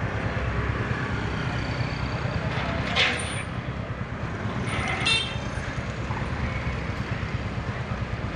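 Lorry engine idling with a steady low rumble. Two brief louder sounds cut in about three and five seconds in.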